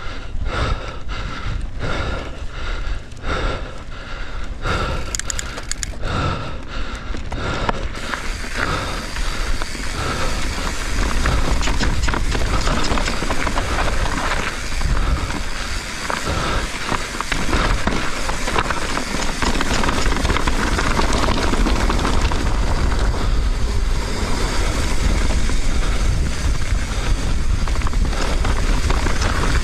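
Mountain bike ridden on a dirt trail, heard from an action camera on the rider: tyre noise over dirt and rock, the bike rattling, and wind on the microphone. The first few seconds carry a regular pulsing about twice a second, and from about eight seconds in the noise turns rougher and louder with a heavy rumble, as on a faster, bumpier stretch.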